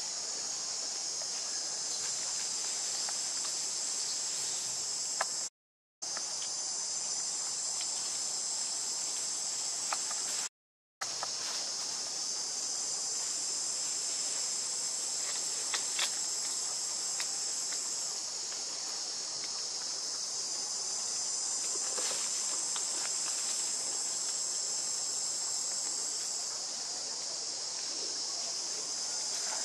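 Steady high-pitched chorus of forest insects, with a few faint clicks and snaps of twigs or leaves. The sound cuts out completely for a moment twice, about six and eleven seconds in.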